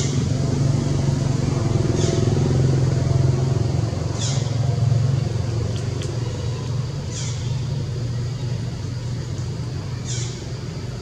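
A steady low rumble like a running engine, with five short high chirps that fall in pitch, spaced two to three seconds apart.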